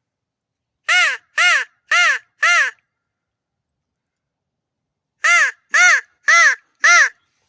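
Hand-blown crow call sounding two series of four loud caws, about two a second, with a pause of nearly three seconds between the series; each caw rises and falls in pitch. It imitates a crow to draw an answer from birds in the area.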